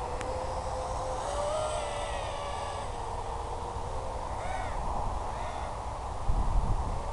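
FPV racing quadcopter's motors and propellers whining in flight, the pitch drifting with throttle, with two short rising-and-falling blips a little past the middle. Wind buffets the microphone as a low rumble near the end.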